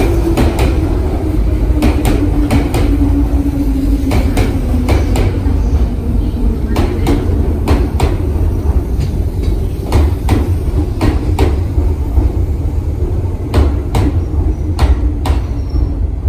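Electric train running through the station: a steady low rumble with groups of sharp clacks as the wheels cross rail joints. A motor whine drops in pitch over the first few seconds and then fades.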